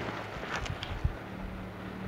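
Jeep Wrangler JK's V6 engine running at low revs as the Jeep crawls over dirt and small rocks, with a few sharp crunches of gravel under the tyres about half a second and one second in.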